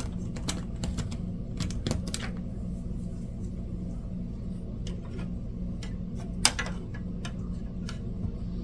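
Scattered light clicks and taps of a plastic pinball part being handled and test-fitted onto the playfield, with one sharper click about six and a half seconds in, over a steady low hum.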